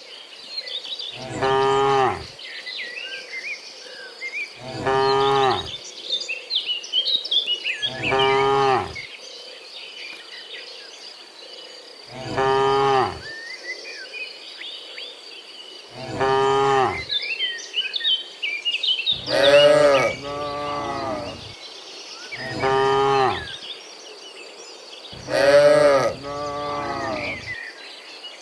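Cattle mooing over and over, one moo about every three to four seconds, with two longer, louder moos about two-thirds through and near the end. Birds chirp and a steady insect drone runs underneath.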